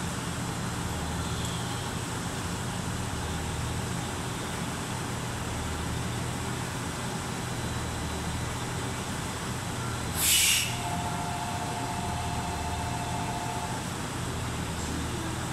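Diesel railcars idling at a station platform with a steady low hum. About two-thirds of the way through, a short sharp hiss of compressed air is followed by a steady two-note tone lasting about three seconds.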